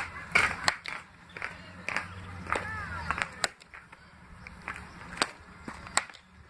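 Sharp cracks of a baseball bat hitting tossed balls during batting practice, several at uneven spacing. A bird chirps briefly about two and a half seconds in.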